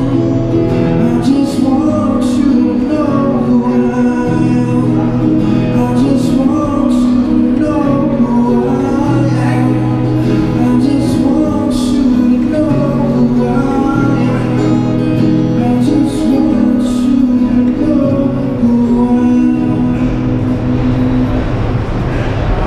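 Acoustic guitar and a man's singing amplified through a small battery busking amp, with sustained layered chords under the melody. Near the end the music dies away and the low rumble of a subway train comes in.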